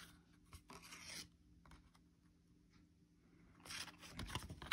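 Faint rubbing and sliding of cardboard trading cards against each other as cards are shuffled through a hand-held stack, in two short spells about a second in and near the end.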